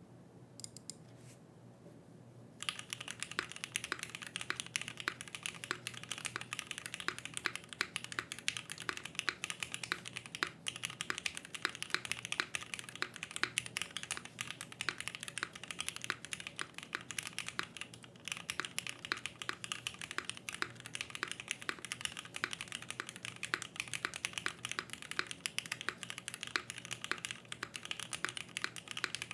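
Typing on a gasket-mounted ai03 Vega custom mechanical keyboard with an aluminium plate, lubed Cherry Hyperglide Black linear switches and GMK keycaps: rapid, continuous keystrokes that start about two and a half seconds in, with a short pause about eighteen seconds in.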